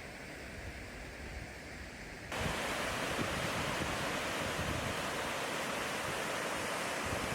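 Steady rush of falling water from a waterfall, which jumps abruptly louder and brighter a little over two seconds in.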